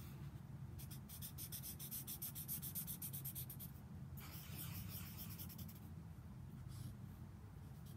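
Black felt-tip marker drawn over paper: a run of quick back-and-forth scratchy strokes for about three seconds, then a longer smoother stroke, then a few fainter strokes near the end. A steady low hum lies underneath.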